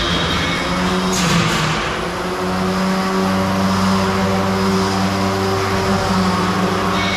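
Small combat robot's spinning weapon whining steadily at a fixed pitch, with a brief harsh grinding burst about a second in as the robots clash.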